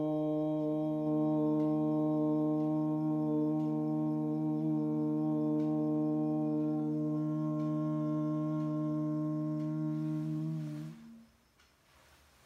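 Conch shell (shankh) blown in one long steady note. The note swoops up in pitch as it starts, holds for about eleven seconds and stops near the end.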